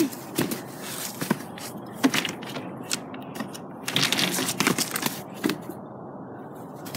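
A small pet rodent moving about its cage: rustling and crinkling with scattered sharp clicks and crackles, busiest a little past the middle.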